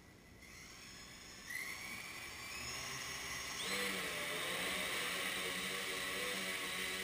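Quadcopter's electric motors and propellers spinning up for take-off: a whine rising in pitch, stepping up about a second and a half in and again near four seconds in as the craft lifts off, then a steady, louder high whine as it hovers low.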